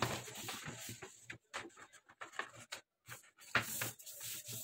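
A large sheet of paper rustling and scraping on the table as hands slide and smooth it flat, in short irregular bursts.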